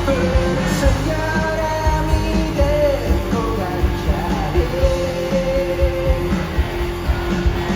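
Rock band music with a singer holding long, slightly sliding notes over steady drums and guitars.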